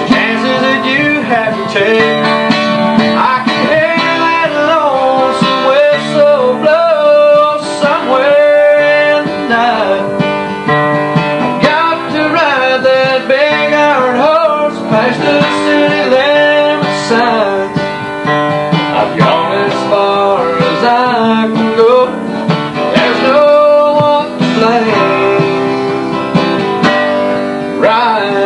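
A steel-string acoustic guitar strummed through a country song, with a man singing along.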